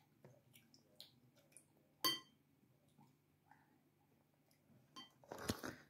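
Mostly quiet, with faint clicks of a plastic fork in a ceramic bowl of noodles and one clear, ringing clink of the fork against the bowl about two seconds in. Near the end a packet starts crinkling.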